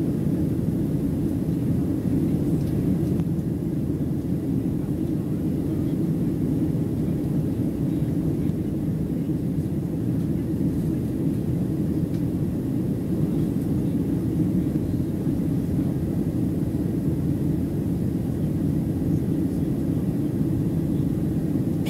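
Steady low cabin noise of a Boeing 737-700 in flight, heard from a seat over the wing: its CFM56-7B jet engines and the airflow past the fuselage, unchanging throughout.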